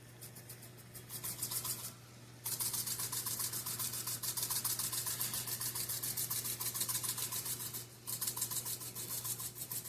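Spice shaker of crushed red pepper flakes shaken hard over a pan, a rapid run of scratchy rattling strokes in three bouts, the longest in the middle.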